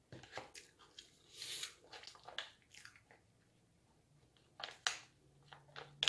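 Close-miked chewing and biting of a person eating: irregular short mouth clicks and smacks in two bouts with a pause of about a second and a half between them.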